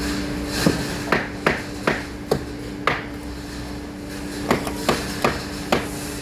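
A hammer striking about ten times in two quick runs, each blow a sharp knock, over a steady hum.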